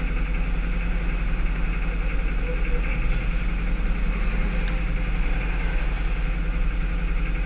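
Tow truck engine idling steadily, a constant low hum, with one light click a little past halfway.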